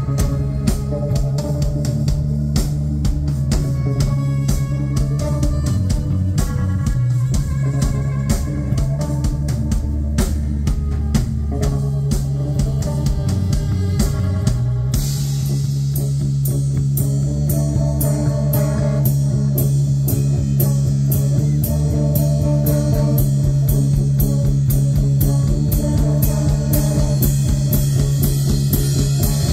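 Live rock band playing: electric bass, electric guitar and drum kit at full volume, with a steady driving beat and the cymbals coming in heavier about halfway through.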